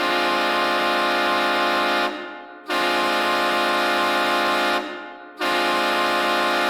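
Hockey goal horn blowing three long, steady blasts of about two seconds each, every blast trailing off in an echo before the next one.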